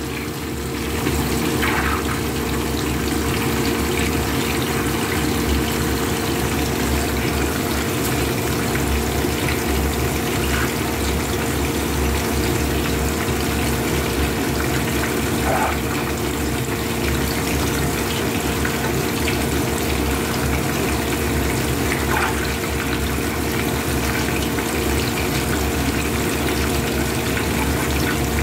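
Whole fish frying in shallow oil in a pan, the oil bubbling and sizzling steadily, with a steady low hum underneath.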